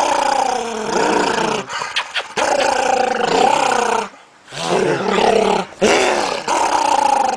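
A dog growling playfully in drawn-out bouts whose pitch slides up and down, about four long bouts with short breaks between them.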